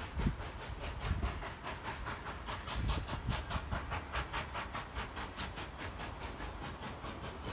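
Exhaust beats of a USATC S160 2-8-0 steam locomotive, No. 5820, working under load: a quick, even rhythm of chuffs with some steam hiss, heard from a distance.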